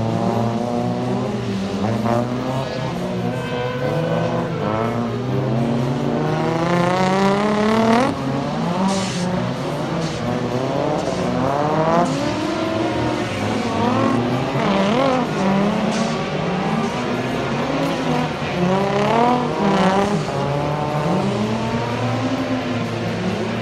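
Several classic four-stroke racing motorcycles' engines revving hard as a pack goes by. Their notes climb and drop sharply at gear changes, overlapping one another.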